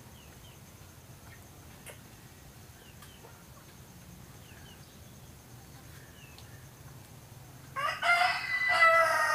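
A rooster crows once near the end, a loud call of about two seconds that falls in pitch as it ends.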